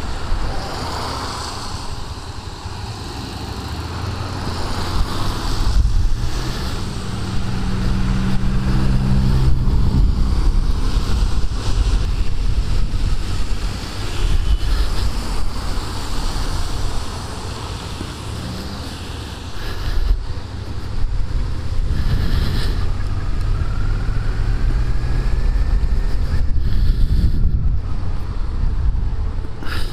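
Suzuki SFV650 Gladius's 645 cc V-twin running on the move, heard through a helmet microphone under heavy wind noise, with the hiss of tyres on a rain-soaked road.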